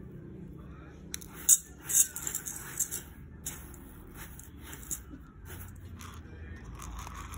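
Fingers sifting through dry uncooked rice in a stainless steel bowl, the grains clicking and rustling. The clicks are sharpest and densest from about one to three and a half seconds in, then come only now and then.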